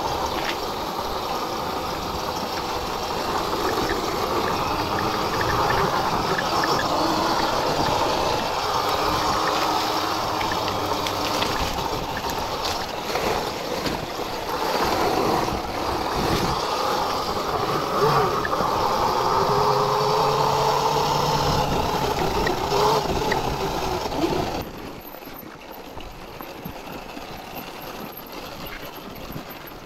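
Sur-Ron electric dirt bike riding: a motor whine that rises and falls with speed over a steady rush of wind and tyre noise. About 25 seconds in, it drops suddenly to a much quieter level.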